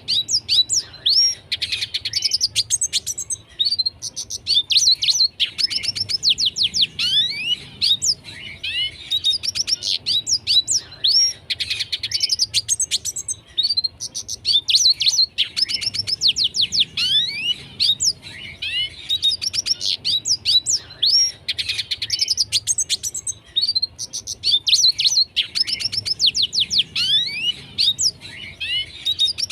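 Red siskin singing busily: fast twittering phrases of chirps, trills and quick rising and falling whistles, one phrase after another every couple of seconds with short breaks between.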